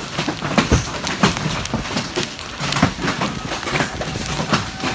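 Large hailstones, some around two inches across, pelting the ground and a metal barn roof in a dense, irregular clatter of hard impacts during a severe hailstorm.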